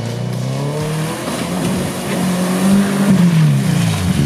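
Subaru Outback engine revving hard while driving through deep mud, its pitch climbing in the first second and dropping near the end, with the tyres churning through the mud.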